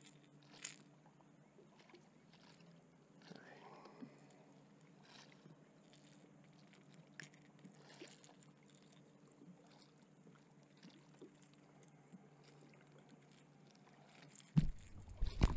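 Faint handling noises in a small boat: scattered small clicks and rustles as a hooked white bass is held and a crankbait is worked free, over a faint steady low hum. Near the end come a few loud knocks against the boat.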